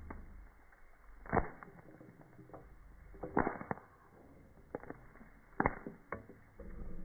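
Popcorn kernels popping one by one in hot oil in a cast iron pan over a wood fire, each pop a short sharp crack, slowed down along with the slow-motion footage. About eight pops, irregularly spaced, the loudest about a second and a half in, at three and a half seconds, and again toward the end.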